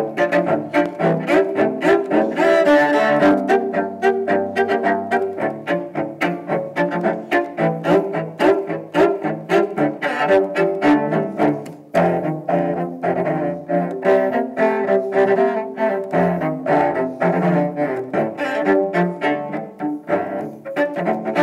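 Solo cello bowed in quick, short strokes, a fast run of notes with sharp attacks, with a brief break about halfway through before the playing picks up again.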